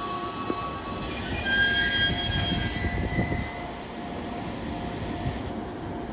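JR East E231-0 series electric train running through the station with a steady rumble, and high whining tones most prominent from about one to three seconds in.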